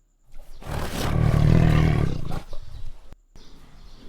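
Tiger roaring: one long, loud roar, and a second roar begins after a short break near the end.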